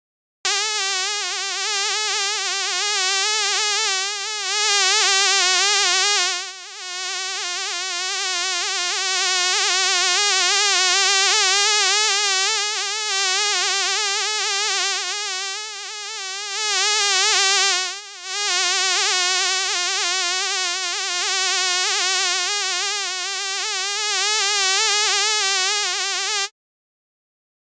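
A fly buzzing in flight: a steady, high buzz whose pitch wavers constantly, dropping away briefly twice before it cuts off near the end.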